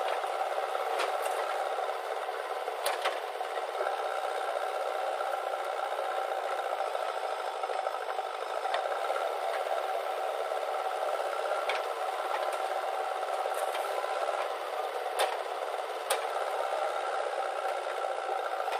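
JCB 3DX backhoe loader's diesel engine and hydraulics running steadily while it digs and loads earth, with a few sharp knocks and clatters as soil and stones drop into a tractor trolley.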